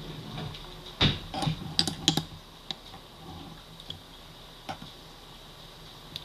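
Light clicks and taps of kitchen utensils and a container while garlic paste is added to a bowl of beaten eggs. There is a cluster about a second in, then a few scattered ones.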